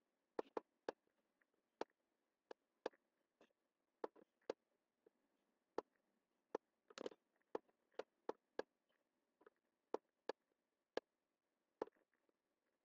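Computer mouse button clicking: short, sharp clicks at irregular intervals, one to three a second, with a longer, louder one about seven seconds in.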